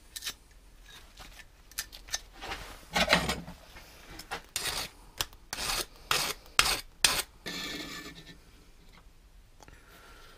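Hand-filing of a small steel sheet-metal piece: about a dozen short, uneven strokes of a file across a freshly cut metal edge, the strongest about three seconds in, stopping about eight seconds in.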